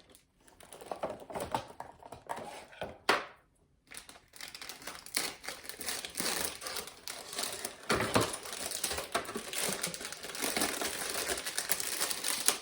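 Packaging being crinkled and pulled open by hand while a toy bow light is unwrapped: scattered crackles and clicks at first, then steady dense crinkling from about four seconds in.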